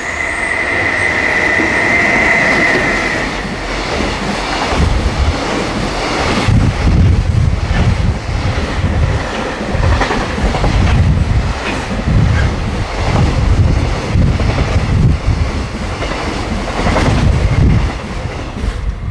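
A JR Freight EH500 electric locomotive passing close with a steady high whine for the first three seconds, followed by its container wagons rumbling and clattering past, the wheels knocking over the rail joints in a regular beat.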